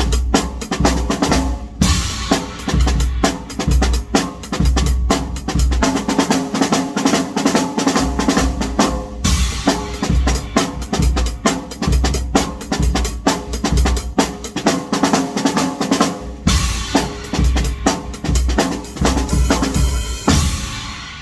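Pearl drum kit played with sticks: a steady groove of kick, snare and rimshots broken by fills, over a backing track with a bass line. The music fades near the end.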